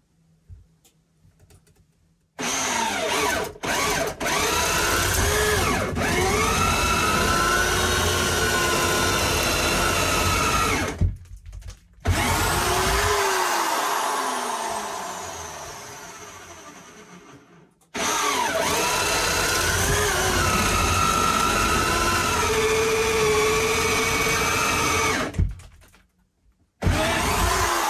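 Power drill boring holes into the wooden wall studs at a corner, to run a wire around it. After about two seconds of quiet it runs in three long stretches with short stops, its pitch sagging and recovering as the bit loads up in the wood. Once, in the middle, it slows and fades gradually over several seconds, and it starts up again near the end.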